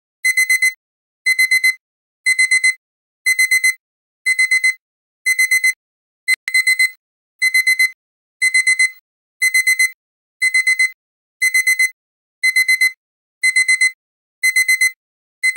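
Electronic alarm-clock beeping that signals the end of a 40-minute countdown. A high beep of about four quick pulses repeats about once a second. A single sharp click falls about six seconds in.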